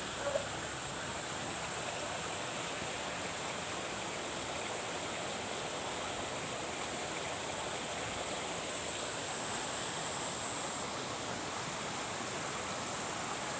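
Steady rush of running water, with a thin, high, steady tone above it.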